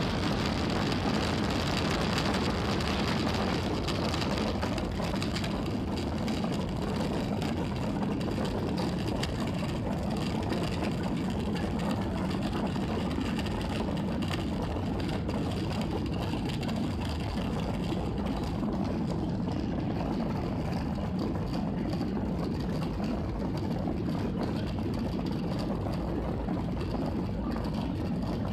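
Boeing 737 cabin noise while taxiing: a steady low engine hum and rumble with airy hiss over it, heard from a window seat over the wing.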